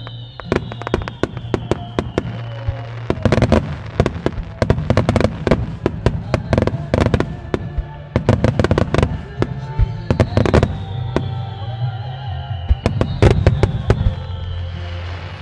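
Starmine fireworks display: a rapid barrage of aerial shells bursting, many sharp bangs in quick clusters, some overlapping. Music plays underneath.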